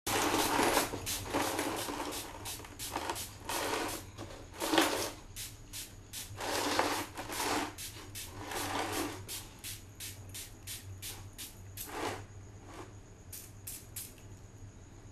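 Small finger-pump spray bottle being squeezed over and over, each squeeze a short hiss of mist onto a plastic safety helmet, coming about two a second later on.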